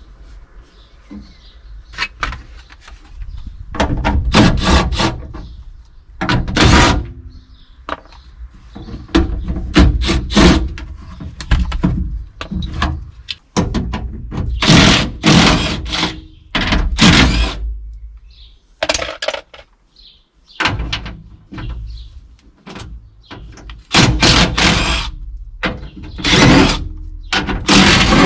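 Irregular knocks, clunks and metallic clatters of hand tools on a Nissan GU Patrol's door as its handle, lock and linkage are taken apart, coming in short clusters with brief pauses between.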